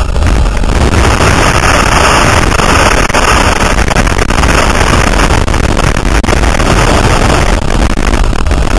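Loud, steady wind noise buffeting a helmet camera's microphone in skydiving freefall, cutting in suddenly as the jumper leaves the aircraft.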